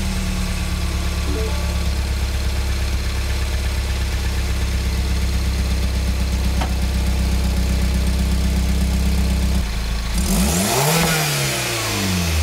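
A Mini Countryman Cooper S's turbocharged 1.6-litre four-cylinder idles through a catless aftermarket downpipe, heard at the exhaust tip just after a warm start. The idle note is steady, then swings up and down in pitch near the end.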